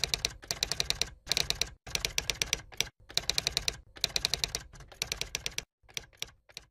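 Typing sound effect: rapid keystroke clicks, about seven or eight a second, in short runs with brief pauses between them, the clicks growing sparse near the end.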